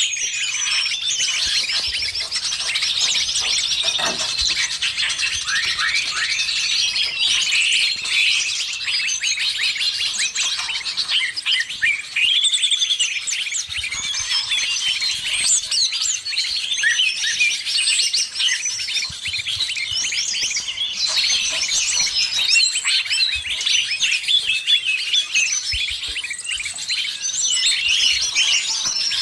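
A dense, unbroken chorus of many songbirds chirping and calling over each other: a mixed 'noisy birds' lure recording combined with green leafbird (cucak ijo) calls, played to draw wild birds in.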